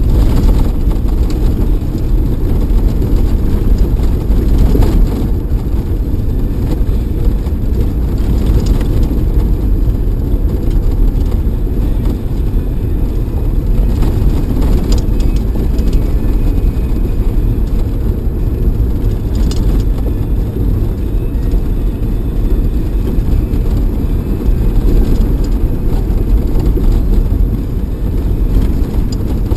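4x4 driving on a rough gravel desert track, heard from inside the cab: a loud, steady low rumble of engine and tyres on the loose surface, with a few faint ticks.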